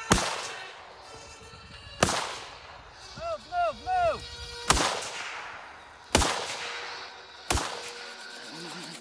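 Five rifle shots, each followed by a decaying echo, spaced about one and a half to two and a half seconds apart. Between the second and third shots come a few short pitched notes that rise and fall.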